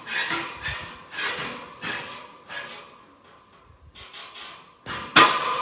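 Ninja-obstacle swinging grip and its rigging clattering and clanking as a competitor swings on it: a string of short, echoing clatters, with one loud bang near the end.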